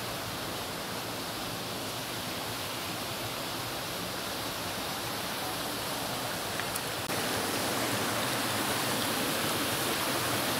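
Steady rush of water from a waterfall and rocky mountain stream, a dense even hiss that grows slightly louder toward the end.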